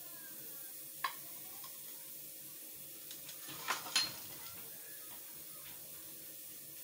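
A few light clicks and clinks of kitchen dishes: one about a second in, then a quick run of small ticks, with the loudest two close together near four seconds, over a faint steady hum.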